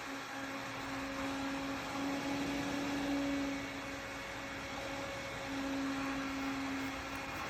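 Small USB desk fan running steadily: an even airy whir with a constant motor hum, swelling a little twice.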